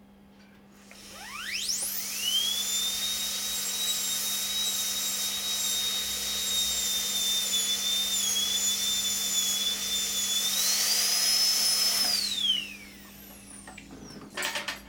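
High-speed dental handpiece with a white stone polishing a composite buildup. It spins up with a rising whine, runs at a steady high whine over a spray hiss, rises in pitch briefly near the end, then winds down with a falling whine.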